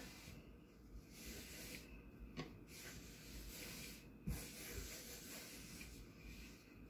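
Faint rubbing of a disposable disinfecting wipe being pushed across a rice-husk cutting board, with two light knocks about two and four seconds in.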